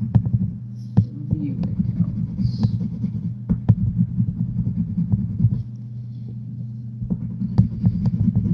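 Sharpie marker scribbling quickly back and forth on paper while coloring in, with small ticks as the tip strikes the sheet, over a steady low hum. The strokes pause for about a second and a half around two-thirds of the way through.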